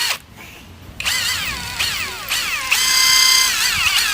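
Brushless electric impact wrench motor whining in uneven surges, its pitch rising and falling, with a brief cut-out near the start and a short steady stretch midway, while the trigger is held down. The motor twitches on and off, which in brushless wrenches is most often a faulty trigger switch.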